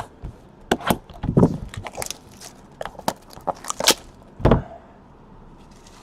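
Boxes of trading cards being handled and opened by hand: scattered sharp clicks and rustles of cardboard and wrapper, with two dull thumps.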